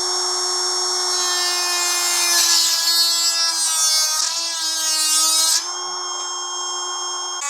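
Swipesmith 12 V cordless rotary tool running at speed with a steady high whine. From about two seconds in, for about three and a half seconds, the pitch sags and wavers under load and a rasping noise joins as the wheel cuts into wood. The tool then returns to a steady free-running whine.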